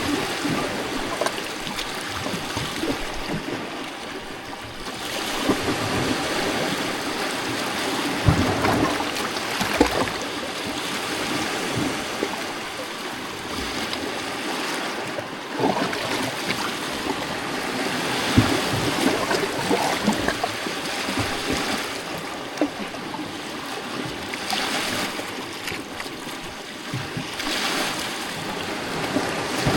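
Small lake waves lapping and splashing against a rocky shoreline: a continuous wash of water broken by irregular louder splashes every few seconds.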